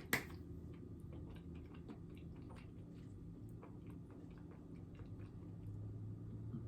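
Close-miked chewing of a mouthful of shrimp: faint, irregular wet mouth clicks, with a sharper click right at the start.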